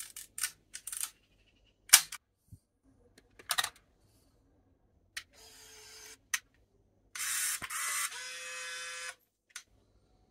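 Clicks of a Konica Pop 35mm compact film camera's shutter and mechanism, several sharp clicks over the first few seconds. Then a Canon Epoca (Photura) motorized 35mm camera: a short whir, a shutter click, and its built-in motor whirring steadily for about two seconds.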